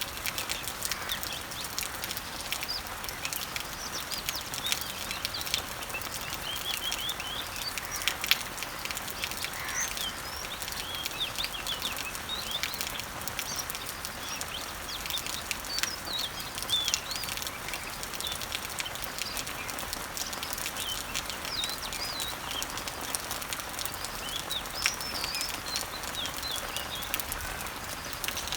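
Steady rain falling on leaves, with a constant hiss and many small drop hits, while small birds chirp again and again in short, quick calls.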